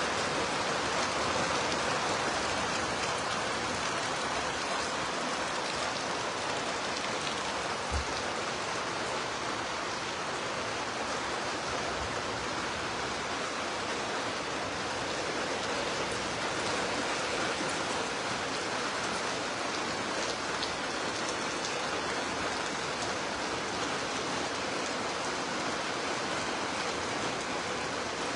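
Heavy rain falling steadily, a dense even hiss, with two brief low knocks about eight and twelve seconds in.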